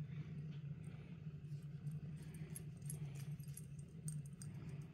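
Domestic cat purring steadily as it is stroked, a low continuous rumble that swells and eases, with faint metallic clinks from the tag on its collar.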